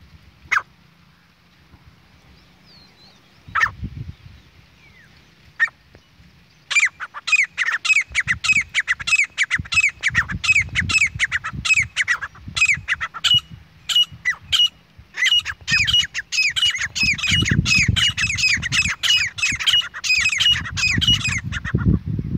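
Grey francolin calling: a fast run of high, downward-sliding notes, several a second, starting about seven seconds in and stopping abruptly near the end, over a low rumble. Before the calls, a few isolated sharp clicks.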